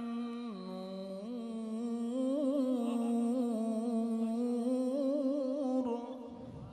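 A man's voice in melodic Quranic recitation, drawing out one long held line. It dips lower about half a second in and climbs back, wavers in ornamented turns, then fades out near the end.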